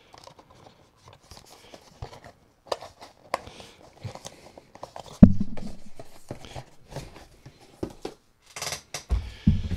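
Paper and cardboard packaging being handled: a small paper leaflet and a white cardboard box insert rustling, with scattered clicks and taps. There is a loud thump about five seconds in and a couple of low thuds near the end.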